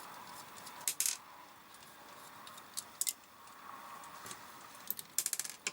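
Sharp metallic clicks and clinks of a screwdriver and small screws being handled on the motor and gearbox: a couple of clicks about a second in, two more near the middle, and a quick cluster of clicks near the end.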